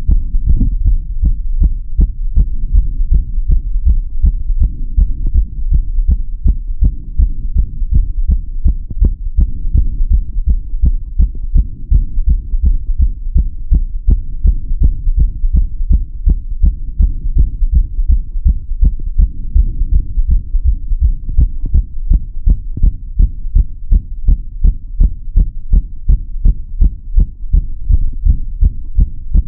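Human heartbeat heard through a stethoscope: regular lub-dub thumps in a steady rhythm over a low rumble.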